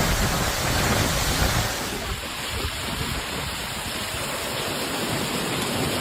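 Steady rushing of water and wind with a rumble on the microphone. The sound shifts about two seconds in.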